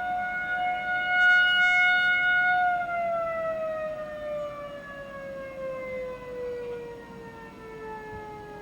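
Outdoor civil defense warning siren holding a steady tone that swells louder for about a second and a half. About three seconds in it starts winding down, its pitch falling steadily, as the test signal ends.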